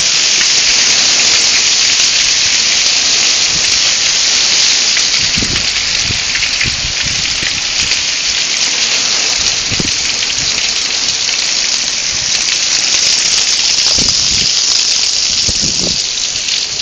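A shower of small hailstones falling: a steady, dense hiss of pattering on surfaces, with a few low knocks here and there.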